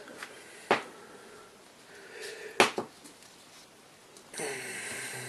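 Airsoft gearbox cylinder and piston being worked by hand in a compression test, with air hissing out and two sharp clicks, then a longer steady hiss near the end. The air leaking past the seals is the sign of very poor compression.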